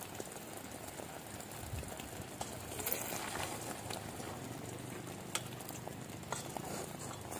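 Stainless steel pot of egg soup simmering over a wood fire, bubbling steadily, with a few sharp clicks as a metal spoon stirs it.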